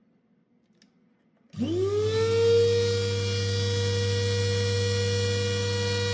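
Small electric blade grinder's motor switched on about a second and a half in. It whines up to speed within about half a second and then runs steadily, with a high whine over a low hum.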